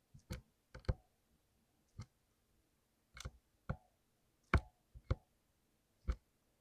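Mechanical keyboard with lubricated clicky blue switches being typed on slowly: about a dozen separate keystroke clicks, irregularly spaced, some coming in quick pairs.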